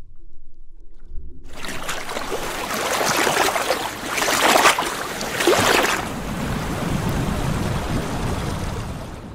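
A low rumble, then a loud rushing wash of noise coming in about a second and a half in. It swells to its loudest around the middle, settles to a steadier rush, and falls away near the end.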